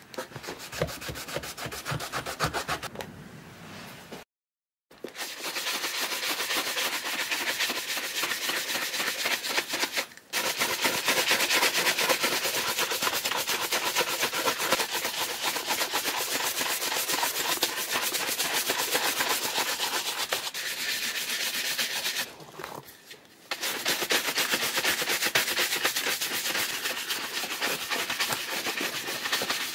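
A shoe brush swept rapidly back and forth over the shell cordovan leather of an Alden 990 shoe: a fast, steady scrubbing. It starts about five seconds in, after a softer cloth wiping and a brief silence, and pauses briefly twice.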